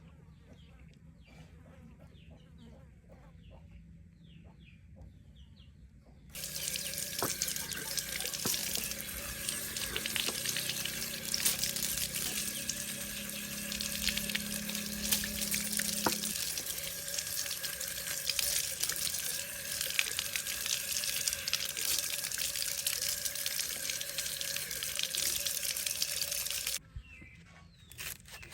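Water running hard from a tap, turned on abruptly about six seconds in and shut off near the end, after about twenty seconds of steady rushing.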